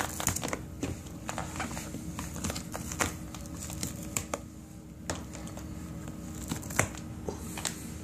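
Crinkling with scattered crackles and clicks from a microwave-damaged Nike Shox R4 sneaker being flexed and handled, its melted, torn upper and sole rubbing and cracking. The sharpest clicks come about three seconds in and again near seven seconds.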